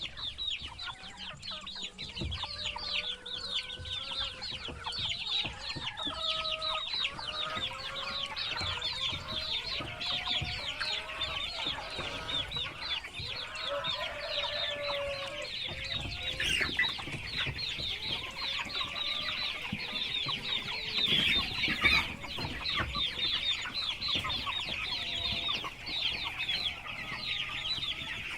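A flock of baby chicks peeping continuously, many rapid high chirps overlapping. Lower clucking calls are mixed in, mostly in the first half.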